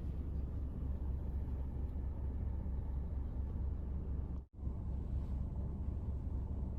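Steady low rumble of a car running, cutting out for a moment about four and a half seconds in.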